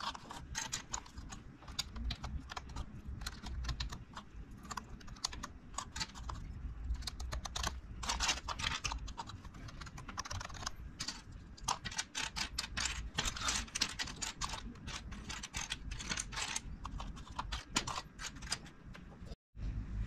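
Plastic keycaps being pressed back onto a Corsair K95 RGB Platinum mechanical keyboard's switches and handled on the bench: a run of irregular clicks and taps, briefly cut off shortly before the end.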